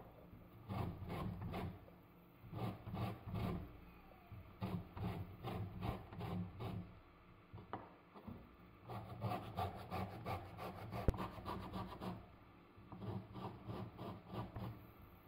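Orange peel being zested on a small metal hand grater held against a wooden cutting board: quick rasping strokes in short runs, with brief pauses between runs.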